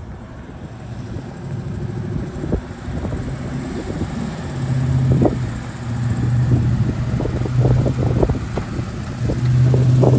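Off-road Jeep engine running low and steady as the vehicle crawls over rock, growing louder about halfway through, with scattered knocks and some wind on the microphone.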